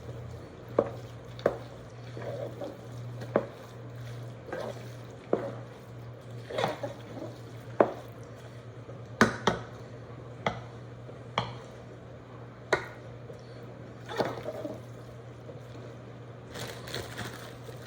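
A spoon stirring thick, creamy macaroni and cheese in a pot, with wet squishing. The spoon knocks sharply against the pot a dozen or so times at uneven intervals, over a steady low hum.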